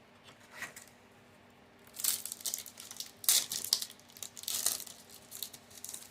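Foil wrapper of a Yu-Gi-Oh! booster pack crinkling and tearing open, in several crackly bursts starting about two seconds in.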